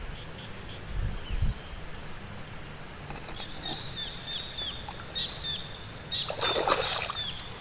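Rice-paddy ambience: a bird repeats short falling chirps over a steady high insect hum, with low thuds early on and a burst of splashing in muddy water near the end.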